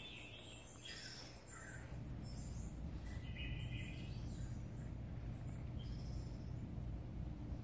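A few short, faint high chirps over a steady low hum.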